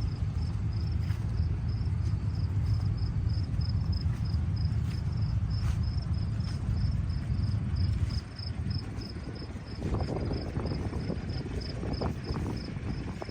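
Crickets chirping in an even, high-pitched rhythm, about three chirps a second, over a low rumble that drops away about eight seconds in.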